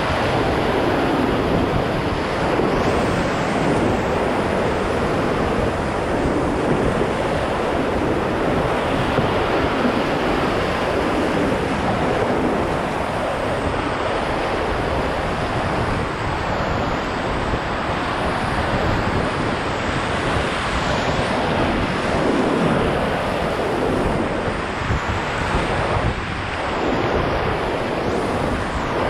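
Ocoee River whitewater rushing and splashing steadily around a raft, with some wind noise on the microphone.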